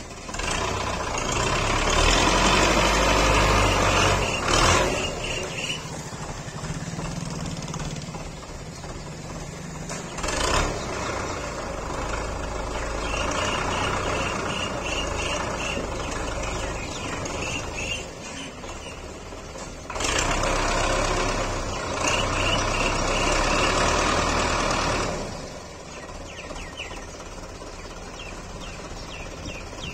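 Belarus front-loader tractor's diesel engine working under load as it climbs a muddy slope. It surges loud for about four seconds near the start, again briefly about ten seconds in, and for about five seconds after twenty seconds, dropping back to a lower steady run in between.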